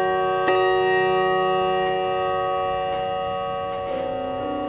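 Kieninger triple-chime mantel clock movement striking once on its chime rods about half a second in, the metallic tone ringing on and slowly dying away, a slow stroke of the kind the hour count uses. The movement's escapement ticks steadily beneath it.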